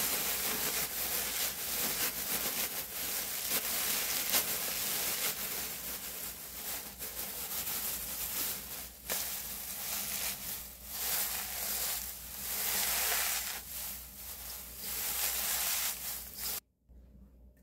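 Dry, crisp sheets of old laver (gim) being crushed and crumbled by hand, a steady crackling rustle that comes in uneven surges and stops abruptly near the end.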